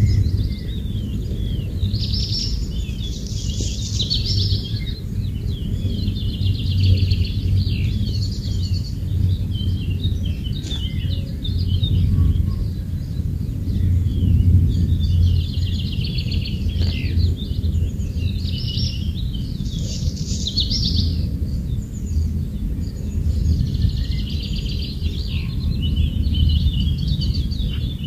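Wild birds singing and chirping in a forest, in repeated bursts of quick chirps and trills every few seconds, over a steady low rumble.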